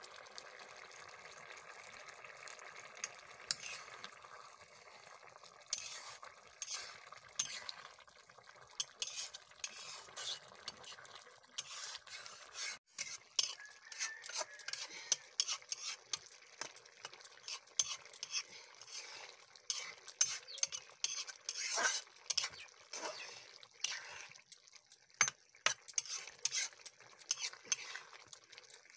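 Long metal spatula stirring a simmering brinjal and dry-fish curry in a kadai, scraping and clinking against the pan over a steady bubbling hiss. The clinks come thick and fast from about six seconds in.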